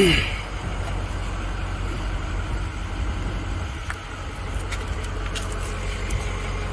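Steady low engine hum, with a brief falling squeak right at the start.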